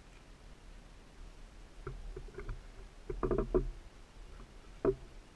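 Faint scattered clicks and knocks, with a short cluster about three seconds in and a sharper knock near the end.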